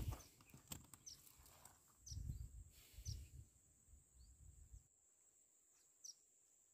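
Faint outdoor ambience: a few short, high bird chirps that fall in pitch, over a steady thin high whine, with soft low thumps in the first half. It goes nearly quiet about five seconds in.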